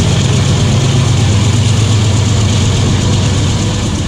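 Freight train running past at speed: a loud, steady deep rumble with a broad rushing noise of wheels on rail above it.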